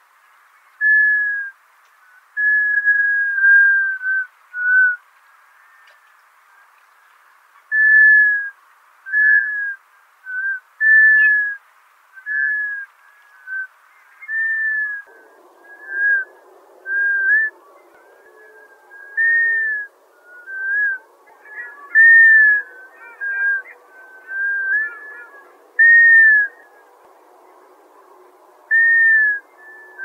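Black scoters (Melanitta americana) giving short, plaintive whistled calls, repeated irregularly about once a second, some notes slightly falling in pitch. A low rushing background noise joins about halfway through.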